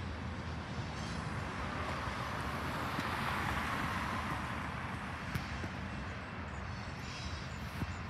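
A car passing on the road: tyre and engine noise swells to a peak about halfway through and then fades, over a steady low rumble of traffic.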